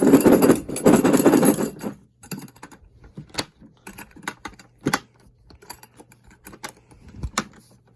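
Steel impact sockets clattering against a blow-molded plastic case: a dense rattle for about two seconds, then scattered single clicks and clinks.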